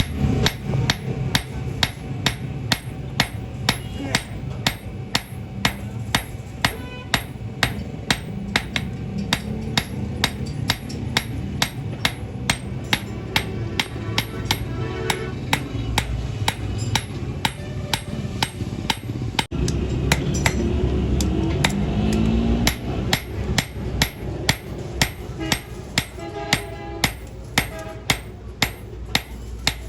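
Hand hammer striking hot steel on an anvil in a steady rhythm of about two blows a second while a sickle blade is forged.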